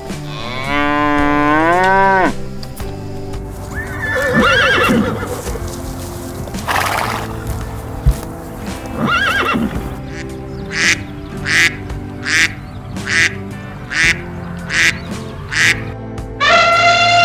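Farm animals calling over steady background music. A long pitched call comes near the start, then a few scattered calls. From about ten seconds in there is a run of about eight short, evenly spaced calls, and a long pitched call begins near the end.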